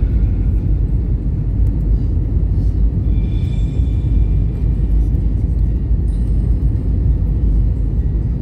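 Steady low rumble of an Airbus A320's engines and rushing air, heard inside the passenger cabin on the landing approach.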